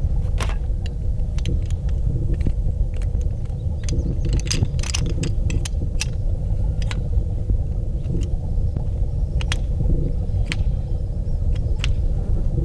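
A steady low rumble, with short sharp clicks and light clinks scattered irregularly through it.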